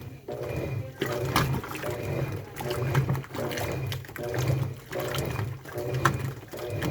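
Washing machine in its wash cycle: the motor hums in runs of about a second as the drum turns, with short pauses between runs, and the water in the drum sloshes.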